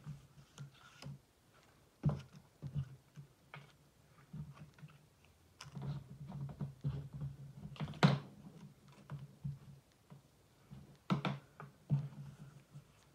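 Strips of patterned card stock being handled, picked up and laid down on a craft mat: scattered light taps, clicks and paper rustles, the sharpest tap about eight seconds in.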